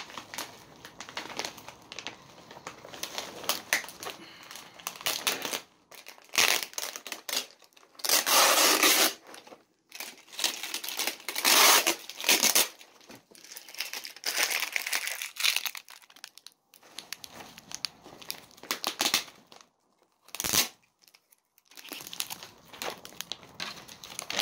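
Plastic packaging wrap crinkling and rustling as it is handled and pulled apart, in irregular bursts with short pauses between them; the loudest bursts come about eight and twelve seconds in.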